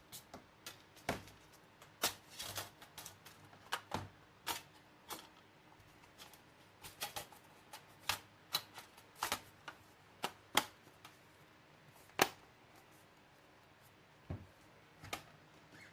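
Irregular small clicks and taps from handling a MacBook Pro as it is closed up, its case, parts and tools knocking lightly; the sharpest click comes a little past twelve seconds in.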